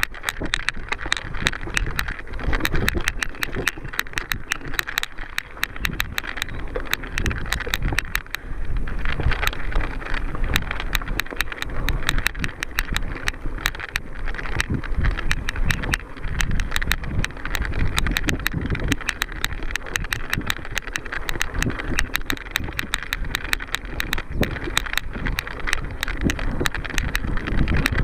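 Mountain bike ridden over rough trail: a dense, continuous clatter of rattles and clicks from the bike and tyres, with wind rumbling on the microphone.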